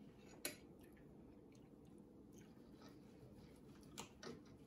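Quiet eating at a table: faint chewing, a sharp clink of a knife or fork against a plate about half a second in, and two softer clinks near the end.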